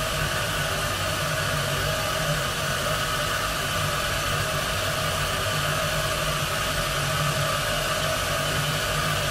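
A steady, unchanging wash of noise over a low hum: a noise drone in a plunderphonic sound collage.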